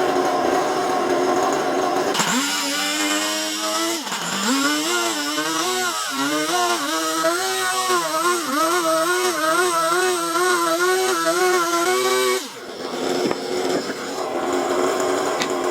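A power tool's motor running with a whine whose pitch dips and recovers over and over as it is worked against wood, stopping suddenly about three-quarters of the way through.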